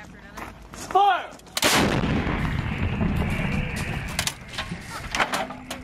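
M777 155 mm towed howitzer firing a single round about a second and a half in: a sudden blast, then a long tail of noise that dies away over two to three seconds. A short shout comes just before the shot.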